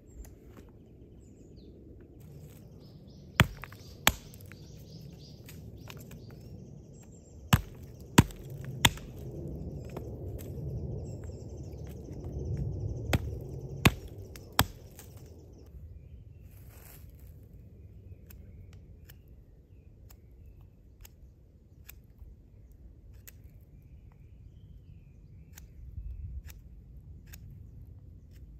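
Hatchet striking into a log: sharp, loud chops in three short runs of two or three strokes. Then, from about halfway, faint evenly spaced clicks of a knife carving wood, with a few faint bird chirps.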